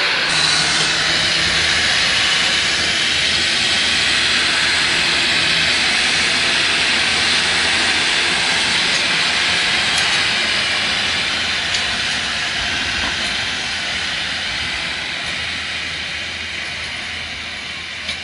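Farm tractor's diesel engine running steadily under load while it drags a leveler blade through loose soil, with a steady hiss over the engine note. It fades gradually over the last several seconds as the tractor draws away.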